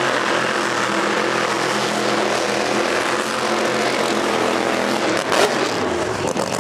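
Drag car's engine running loud and steady, with one sharp crack about five seconds in.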